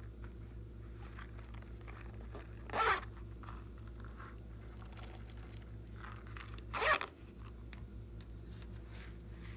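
Glossy slime being worked by hand, with faint sticky crackles throughout and two louder, short rasping rips, about three seconds in and again near seven seconds.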